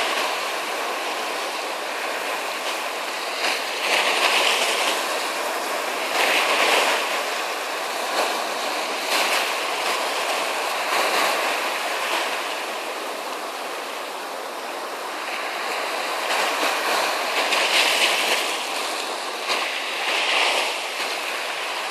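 Ocean waves breaking and washing on a shore: a continuous rushing surf that swells every two to three seconds, with a quieter lull in the middle.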